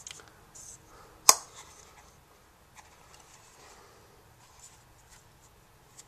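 Hands turning and handling a Griffin Survivor rugged rubber-and-plastic iPod Touch case, with faint rubbing throughout. There is one sharp click about a second in and a few small clicks later.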